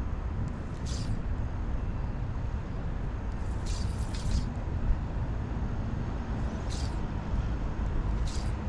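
Steady low rumble of city road traffic, with four short high-pitched hisses cutting in over it.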